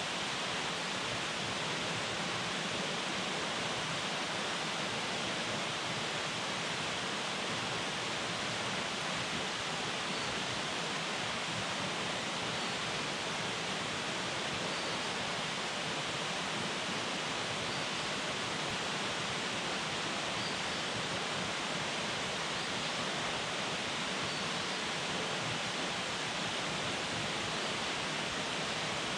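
Small waterfall pouring steadily into a rocky canyon pool, an even rush of falling water that holds the same level throughout.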